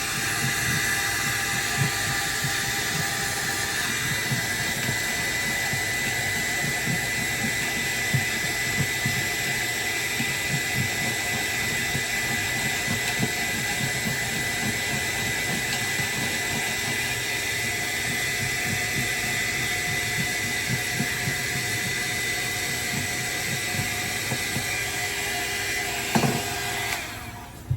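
Hair dryer running with a steady airy rush and a thin high whine, cutting off near the end.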